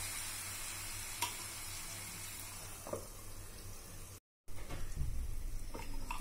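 Sliced bananas sizzling in hot ghee in a frying pan, a steady hiss with a few light knocks. Near the end the steel lid is handled, with short clinks.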